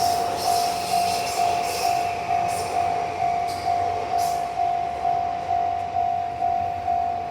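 Japanese level-crossing warning bell ringing steadily, about two electronic strikes a second. A passing train is heard under it, fading out by about halfway.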